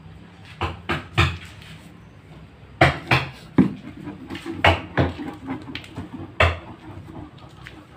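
Irregular sharp knocks and taps of hand-tool work on a wooden desk, about nine strikes, the loudest clustered about three seconds in.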